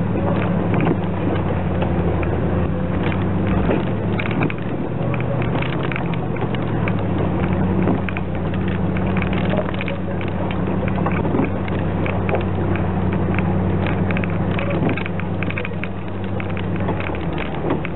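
A 4x4's engine running at low, steady revs as it crawls over a rocky track, heard from inside the cabin, with frequent small clicks and crunches from stones under the tyres and the body rattling.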